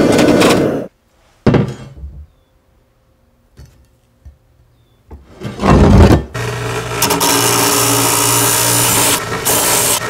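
Shop sounds across quick cuts: a hydraulic forging press running for about a second, then near quiet with one knock, then a steel bar scraped across a wooden workbench, loudest about six seconds in, followed by a motor running steadily with a low hum.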